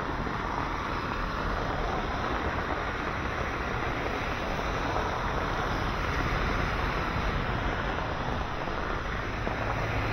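Traffic on a rain-soaked road: cars and motorcycles passing with a steady hiss of tyres on wet asphalt, over falling rain. Near the end a vehicle passes close, adding a low rumble.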